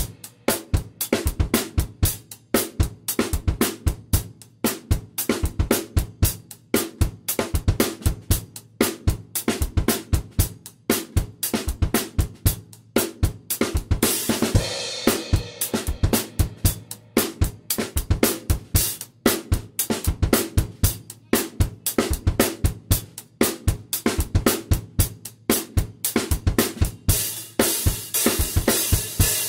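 Acoustic drum kit played on its own, with kick, snare and hi-hat keeping a steady beat. Meinl cymbal crashes come about halfway through and again near the end.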